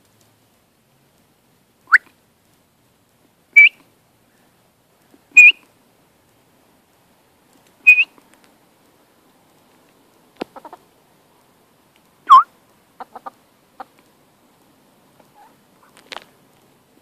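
Young pullets, Wyandottes and a Buff Orpington, giving short, high-pitched peeping calls, five in all spread out a second or more apart. The first call rises sharply and the last is lower. Several faint clicks fall between the later calls.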